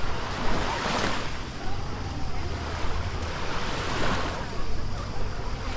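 Small sea waves washing onto a sandy beach, swelling twice, with faint distant voices.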